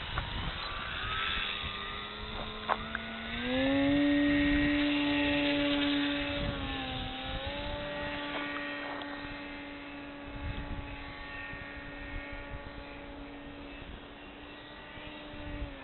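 Motor and propeller of a foam radio-controlled plane whining in flight: the pitch rises as the throttle opens about three seconds in, is loudest just after, dips briefly and then holds steady while slowly fading. Low rumbling noise runs underneath.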